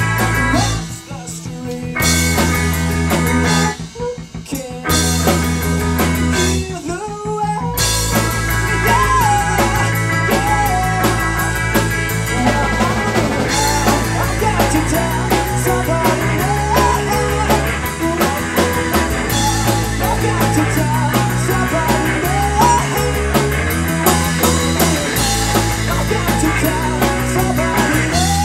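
Live rock band playing drums, bass and guitar, in a heavily compressed recording. The band breaks off briefly three times in the first eight seconds, then plays on steadily with a sung vocal line from about eight seconds in.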